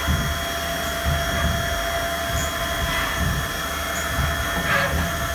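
CNC milling machine spindle running steadily with an end mill on a light roughing pass over aluminium, the cutter just barely catching material: a steady whine over machine noise.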